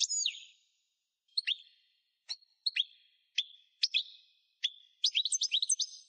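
A songbird singing: clear, separate chirps and downward-sweeping whistled notes with short pauses between them, then a quick run of notes near the end.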